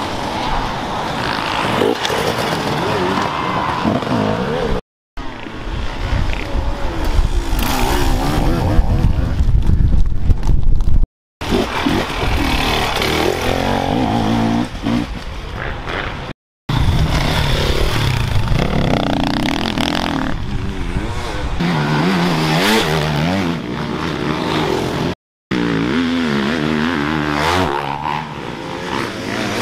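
Dirt bike engines revving up and down as riders pass one after another, the pitch rising and falling with the throttle. It comes in short sections broken by four brief dead-silent cuts, and is loudest and deepest about halfway through the first half.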